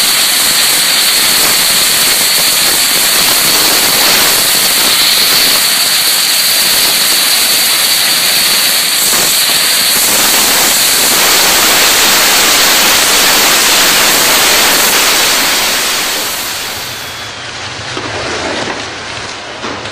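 Dense swarm of homemade sulfur-and-gunpowder rockets firing at once, a steady loud rushing hiss with no break. Near the end it drops to a quieter, thinner rush.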